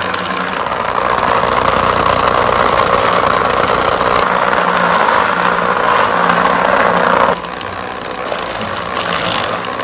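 Battery-powered vibrating bed of a Hasbro Bed Bugs toy game buzzing steadily, shaking the plastic bug pieces so they bounce about. The buzz drops away suddenly about seven seconds in.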